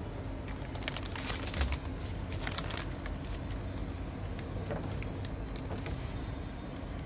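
Thin plastic bag liner crinkling and hard pressed tablets clicking against each other as a hand digs into a lined metal can and picks one out, in a flurry of crackles busiest in the first three seconds. A steady low rumble runs underneath.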